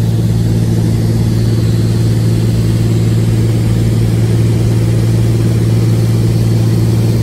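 Cessna 206H Stationair's six-cylinder Lycoming IO-540 engine and propeller running steadily in flight, heard from inside the cabin as a loud, even drone.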